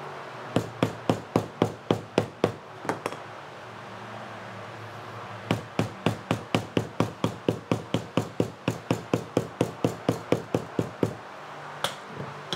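Small hammer tapping glued layers of leather flat on a cutting mat to set the glue bond: a run of about ten quick taps, a pause, then a longer run of about twenty, about four taps a second.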